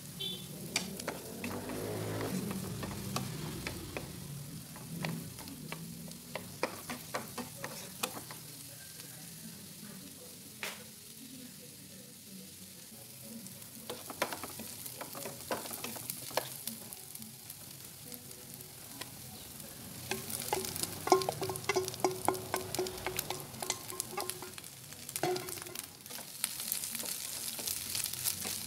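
Diced onion and garlic sizzling in butter in a nonstick frying pan, stirred with a wooden spatula that clicks and scrapes against the pan. The sizzle grows louder near the end, with fried sardine pieces in the pan.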